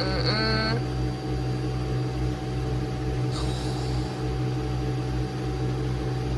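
Nespresso Vertuo Pop+ capsule coffee machine brewing, a steady mechanical hum with a throbbing low rumble, while the Aeroccino milk frother runs alongside. A brief hiss comes about three seconds in.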